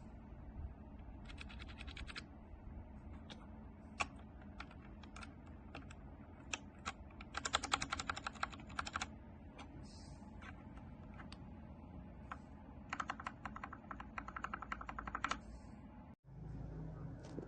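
Mechanical keyboard fitted with Gateron Ink Black v2 linear switches being typed on: quick runs of keystrokes between single key presses. The sound cuts out briefly near the end.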